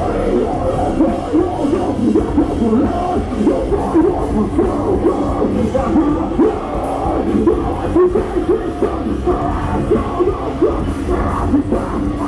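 Metalcore band playing live, heard from within the crowd: distorted guitars and drums with yelled vocals over them.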